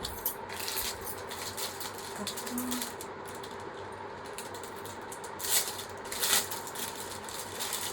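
Rustling and clicking of small items and their packaging being handled, in a few short bursts, the loudest near the end. A faint steady hum runs underneath.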